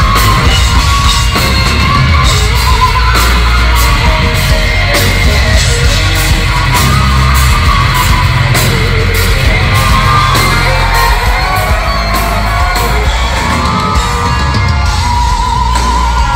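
Live metal band playing at full volume in a large hall: distorted electric guitars, bass and drums, with singing over it. The heavy low end thins out about eleven seconds in.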